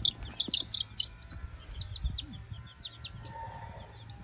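Young chicken chicks peeping: a string of short, high peeps, each dropping in pitch at its end, coming fast at first and then more spaced out.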